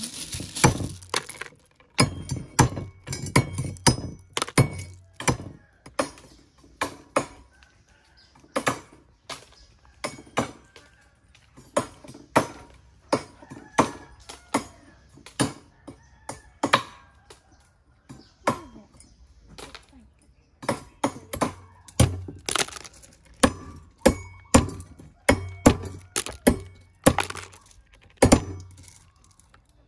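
Two cleavers chopping the pointed tips off sea snail shells on a wooden chopping board: a run of sharp chops and cracking shell, about one or two a second, with a couple of short pauses.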